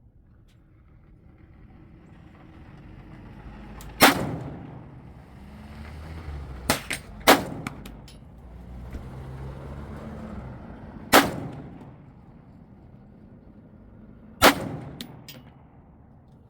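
Five single rifle shots at irregular intervals, two of them in quick succession near the middle, each with a short ringing tail, at an outdoor shooting range.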